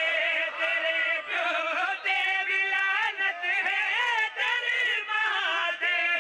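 Men's voices chanting a Punjabi qasida together, a sung devotional refrain with sweeping, held notes and short breaths between phrases.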